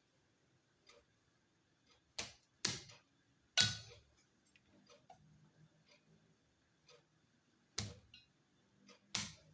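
Garlic cloves being smashed with a kitchen knife: a series of sharp knocks, two close together about two seconds in, one more a second later, then two near the end, with faint small taps in between.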